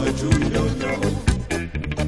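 Ska band music with a steady beat and a melodic lead line, from a 1980 two-tone ska recording.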